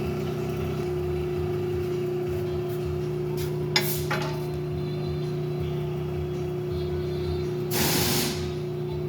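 Steady hum of an electric blade-sharpener motor running, with a few sharp metal clicks about four seconds in and a short hiss near the end.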